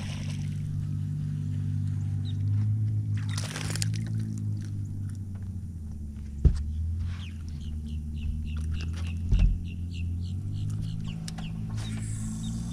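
A hooked bass splashing at the surface as it is reeled to the boat, with a splash at the start and another about three and a half seconds in, then two sharp thumps as it is swung aboard and handled. A steady low motor hum runs underneath, and a bird chirps in quick repeated notes during the second half.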